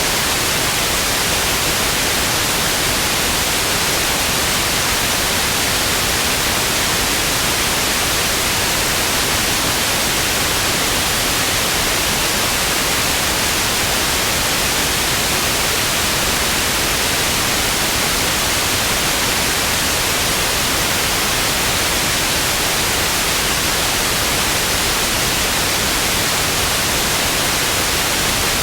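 Television static: loud, steady, unchanging hiss with no tones or breaks.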